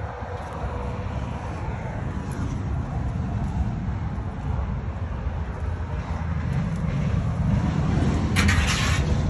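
Wind buffeting the microphone: a gusty low rumble that grows louder, with a brief hiss near the end.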